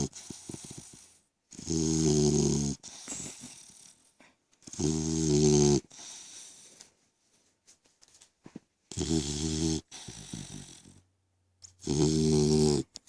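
French mastiff/pitbull cross puppy snoring: four loud snores, each about a second long and roughly three seconds apart, with softer breaths between.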